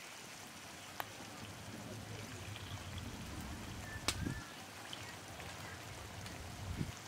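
Red lentils being washed by hand in a steel bowl: faint swishing of grains and water, then water trickling off as the bowl is tilted to drain it. Two sharp clicks, about a second in and about four seconds in.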